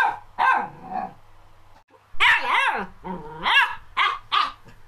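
A puppy yapping: short, high barks in quick runs, the pitch of each falling away, with a pause of about a second after the first few.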